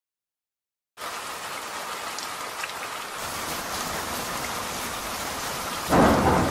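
Silence for about a second, then a steady rain sound effect hissing. Near the end a loud rumble of thunder breaks in over the rain.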